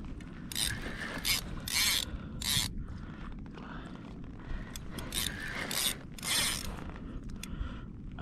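Saltwater spinning reel being cranked in short, irregular bursts, its gears and line roller whirring and clicking, over a low rumble of wind on the microphone.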